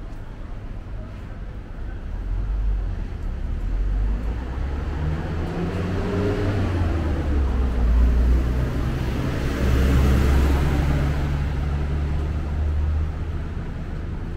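Street traffic: motor vehicle engines running close by on the road. The engine sound grows louder from about two seconds in and eases off near the end.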